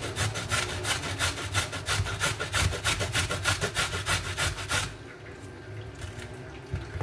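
Carrot being grated on a handheld metal grater: quick, even rasping strokes, about four or five a second, that stop about five seconds in.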